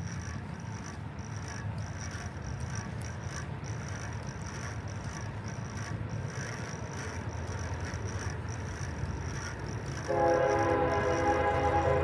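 A low rumble, then about ten seconds in a freight locomotive's air horn starts suddenly, a loud steady chord of several tones, on the approaching Union Pacific GE AC45CCTE (GEVO)-led train.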